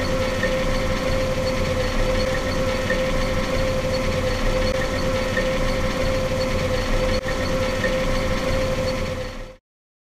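John Deere combine harvester running: a steady engine drone with a strong, steady high whine over it. It drops out briefly about seven seconds in and cuts off near the end.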